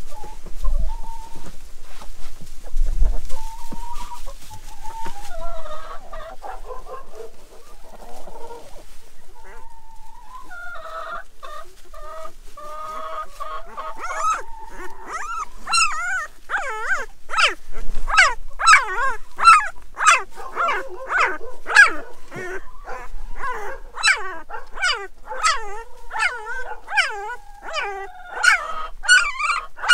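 One-week-old Great Pyrenees puppies squealing and whining in quick, high, repeated cries from about halfway through. Before that, hens cluck.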